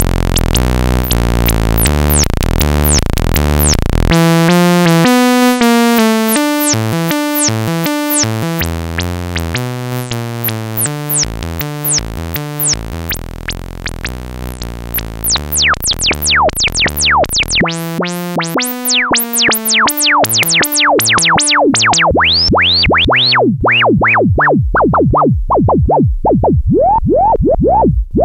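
SE 4075 Eurorack filter fed a sawtooth, playing a fast sequenced synth pattern while its controls are turned by hand. The notes start bright and full; about halfway through they become short plucks with quick falling resonant sweeps, and the sound grows darker as the treble is cut toward the end.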